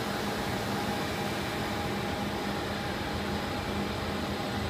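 Large injection molding machine running, a steady mechanical hum with a couple of constant tones in it.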